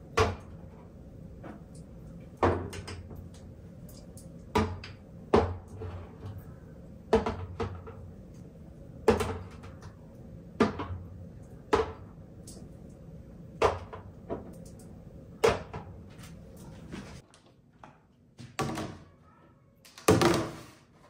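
Glass spice jars set down one at a time on clear acrylic tiered stands, a sharp clack every second or two, over a dozen in all. Near the end, clear plastic storage bins are shifted about, with two longer scraping sounds, the second the louder.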